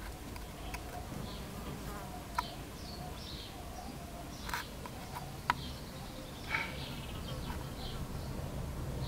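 A metal lure blank's tip pressed and rocked against a wooden stump, giving a few sharp clicks, the loudest about two and a half and five and a half seconds in. Scattered short high chirps and buzzing of insects and a low steady rumble sit behind it.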